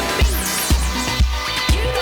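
House-techno club track in a DJ mix: a steady four-on-the-floor kick drum about twice a second under sustained synth tones, with quick zigzagging high synth sweeps about a third of a second in.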